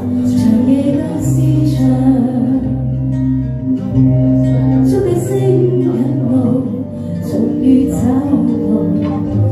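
A woman singing a pop song into a handheld microphone over a karaoke backing track with a steady bass line.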